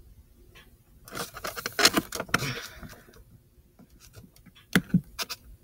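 Handling noise: a sheet of drawing paper rustling and crinkling for about two seconds, then a few sharp taps.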